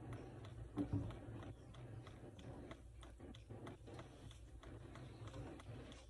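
Faint, irregular light ticks and rustles of hands handling crusty sandwich-roll pieces and a paper towel on a plastic cutting board, with pieces set onto a plate.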